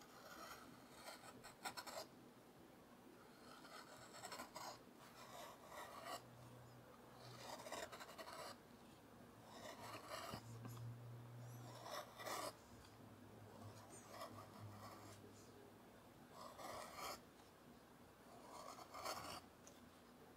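Hand carving gouge cutting into walnut: a series of short, soft scraping cuts, roughly one every two seconds.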